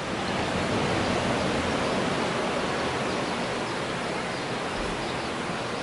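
Steady rushing noise of ocean surf breaking on a sandy beach, mixed with a breeze, with no distinct separate events.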